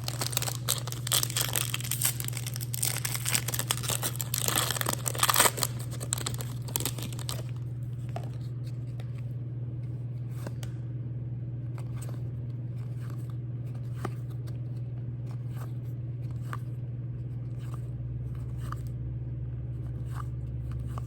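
A trading-card pack wrapper is torn open and crinkled for about seven seconds. Then come scattered light clicks of cards being handled, over a steady low hum.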